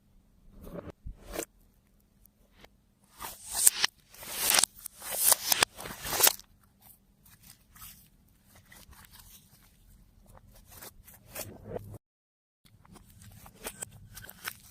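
Slime being worked by hand with things mixed into it, giving crackling, crunching bursts. The bursts are loudest from about three to six seconds in, then turn to softer crackles, and the sound cuts out completely for about half a second near the end.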